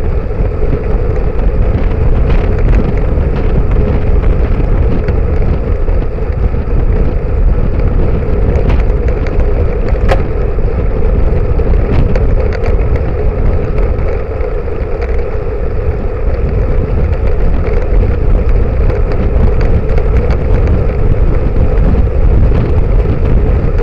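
Wind rushing over a bicycle-mounted camera's microphone, mixed with steady tyre and road rumble from road bikes riding in a group. One sharp tick about ten seconds in.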